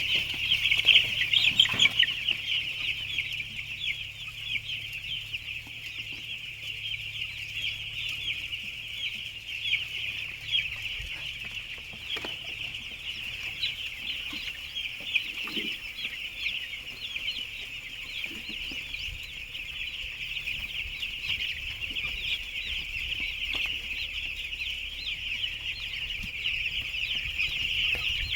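A large flock of eleven-day-old poultry chicks peeping continuously, many short high chirps overlapping into a steady chorus, a little louder in the first couple of seconds.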